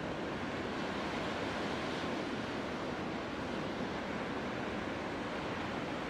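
Ocean surf breaking, a steady, even rush of waves.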